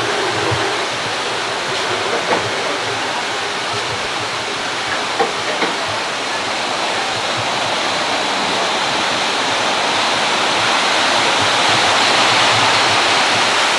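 Steady rushing of a pool waterfall, growing a little louder near the end, with a few light knocks from the camcorder being handled about two and five seconds in.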